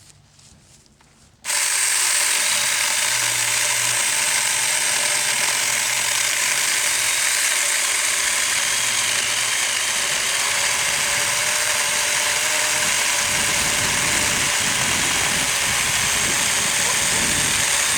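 Saker mini electric chainsaw with a 4-inch bar starting suddenly about a second and a half in and running steadily with a high whine, its chain cutting through a log; rougher low rattling comes in over the last few seconds.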